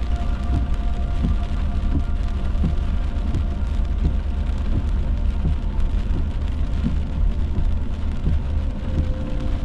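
Steady low road and engine rumble heard inside a truck cab driving on a wet road, with rain on the windshield.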